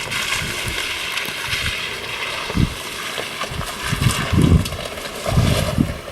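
Jeep driving through mud and water: a steady splashing hiss with irregular low thumps, more of them in the second half.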